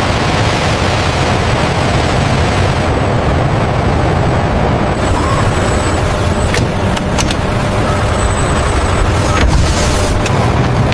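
Steady, loud mechanical rumble of heavy machinery, mostly low in pitch, with a few sharp clicks in the second half.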